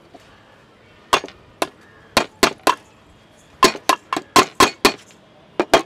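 Claw hammer driving a nail through the thin side wall of a small tin can to punch holes. About a dozen sharp metallic strikes come in quick groups of two to five.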